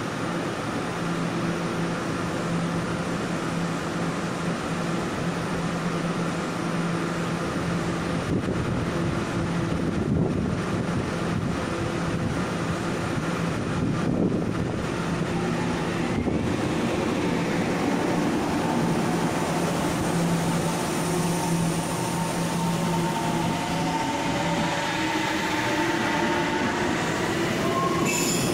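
Taiwan Railways electric multiple unit standing at the platform with a steady hum from its onboard equipment, then pulling away: from about twenty seconds in, the traction motors' whine rises in pitch as it accelerates.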